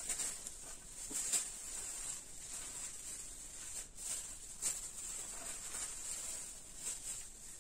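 Hands tossing and turning a heap of shredded white cabbage with grated carrot and salt: soft rustling with occasional crisper crunches of the cabbage strands. The mixing is deliberately light, so the salted cabbage does not yet release its juice.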